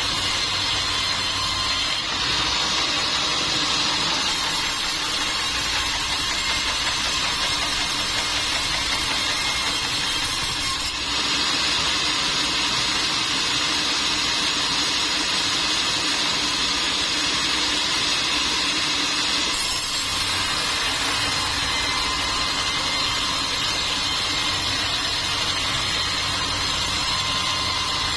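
Sawmill machinery running steadily: a loud, even mechanical noise with a thin high whine over it, which changes abruptly in tone three times.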